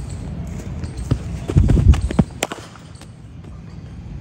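A bowler's running footsteps thudding close by through the run-up and delivery stride, then, about two and a half seconds in, the sharp crack of a cricket bat striking the ball.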